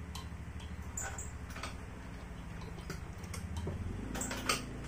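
Yamaha Mio scooter engine being turned over with its spark plug out for an ignition spark check. A steady low hum with a rapid fine pulse shifts lower and grows a little louder near the end, with scattered faint clicks.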